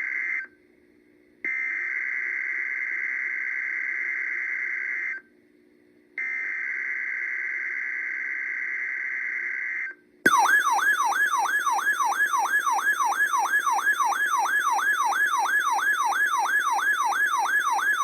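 Emergency Alert System SAME header data bursts, buzzy two-pitch data tones sent three times with a second's pause between, signalling the start of the tornado drill alert. About ten seconds in, a loud siren-like alert tone begins, falling sweeps repeating about three times a second.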